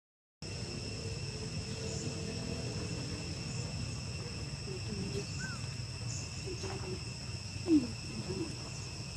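Steady high-pitched insect chirring in the background, with a few short low animal calls in the second half, the loudest just before the end.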